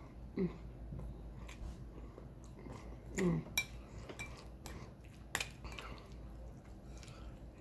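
Close-up eating sounds: chewing, with a few sharp clinks of a utensil against a plate and two brief falling hums.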